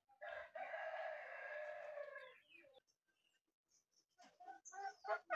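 A rooster crowing: one long call of about two and a half seconds, heard faintly. A few short faint clicks and knocks follow near the end.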